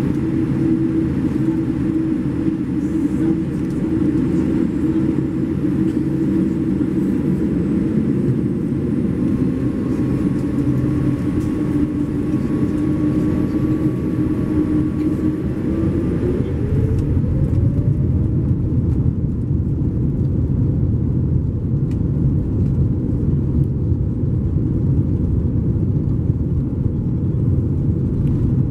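Boeing 787-8 jet engines heard from inside the cabin, running with a steady whine. About 16 seconds in the whine rises in pitch as the engines spool up for takeoff, and a deeper rumble grows louder as the aircraft starts to roll.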